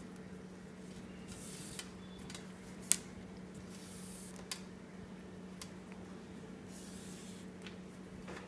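Thin nylon micro cord rustling and rubbing as it is pulled through a woven paracord braid, in soft hissy strokes that come and go, with two sharp clicks, the louder about three seconds in. A steady low hum runs underneath.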